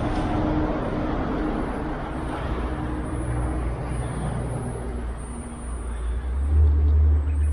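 Road traffic noise from passing vehicles, with a low rumble that swells about six and a half seconds in.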